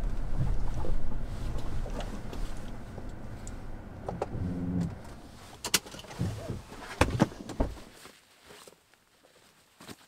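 Car rolling slowly along a dirt forest track, the low tyre and engine rumble dying away as it comes to a stop. Then two sharp clicks and a low thump of a car door being opened and shut.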